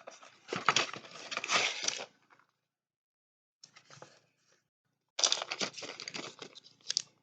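Cardboard medicine box and its packaging being handled: crackly rustling with light knocks and clicks, in two stretches of about two seconds with a pause between.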